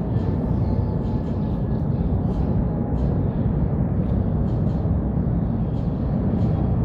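Steady low outdoor rumble, even throughout, with faint short hissy ticks above it.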